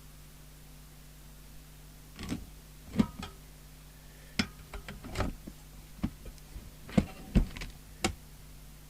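Irregular sharp clicks and knocks of small metal parts and tools being handled on a workbench, starting about two seconds in, over a faint steady hum.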